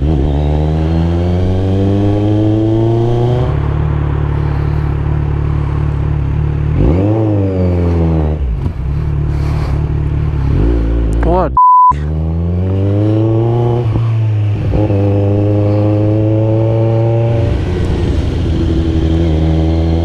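Kawasaki Z900's inline-four through a Yoshimura full exhaust system, accelerating hard several times, its pitch climbing on each pull and dropping back at the upshift, with one quick rev that rises and falls. A short beep tone, a censor bleep, cuts in about halfway through.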